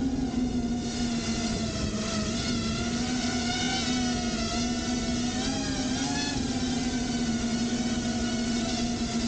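A quadcopter's electric motors and propellers whining steadily, heard from a camera mounted on the drone. The pitch wavers slightly with throttle and rises briefly about six seconds in.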